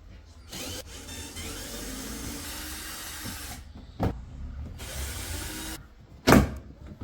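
A small electric motor whirring in two spells of a few seconds each, with a sharp knock between them and a loud strike near the end.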